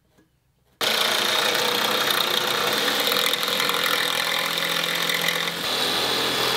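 Jigsaw cutting through a fiberglass box wall. It starts abruptly about a second in and then runs steadily. The blade is chipping up the fiberglass rather than cutting a clean line.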